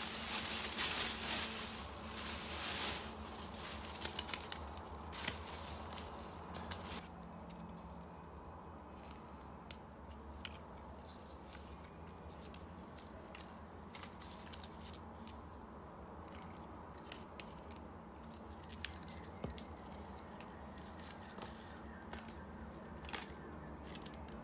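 Plastic shopping bag rustling for the first few seconds, then scissors snipping through artificial flower stems in scattered single sharp clicks.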